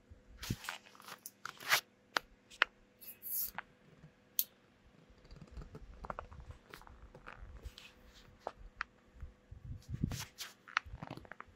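Irregular clicks, taps and short rustles of handling close to the microphone, with a faint steady hum underneath.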